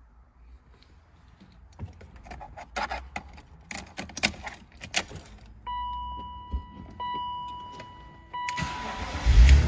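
Car keys jangling and clicking into the ignition of a BMW Z3, then a steady electronic warning tone from the dash that sounds in three stretches. Near the end the starter cranks and the engine fires and keeps running.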